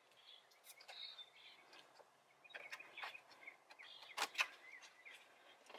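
Faint clicks and light rubbing as a rubber coolant hose is pressed into a plastic clip on the radiator support, with a sharper click about four seconds in.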